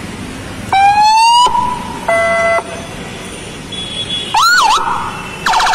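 Car-mounted electronic VIP siren-horn system triggered from a remote, running through short tones one after another: a rising whoop about a second in, a steady horn blast near two seconds, a warbling up-and-down yelp past four seconds and a rapid chirping burst at the end.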